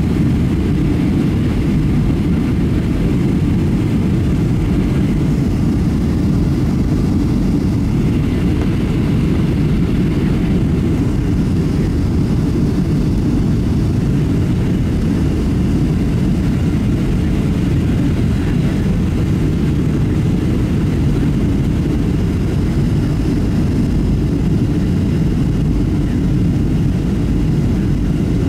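Steady cabin noise inside a Boeing 737-700 on approach: the CFM56 jet engines and the airflow around the fuselage make an even, deep roar that holds unchanged throughout.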